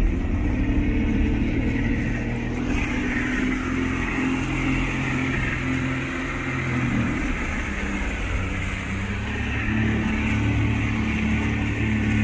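Mercury outboard motor running under way while towing, a steady engine hum whose pitch shifts slightly around the middle. A rush of churned water and wind hiss comes in about three seconds in.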